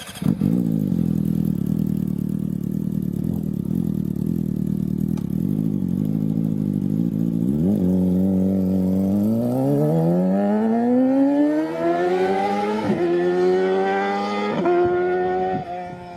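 Yamaha motorcycle engine idling steadily for about eight seconds, then pulling away. The engine pitch rises, then drops sharply three times near the end as it shifts up through the gears.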